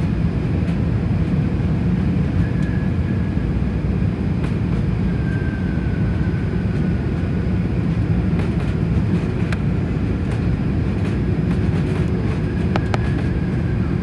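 Steady cabin noise inside an airliner on final approach: a low, even rumble of engines and rushing air, with a faint thin whine drifting above it and a few faint clicks near the end.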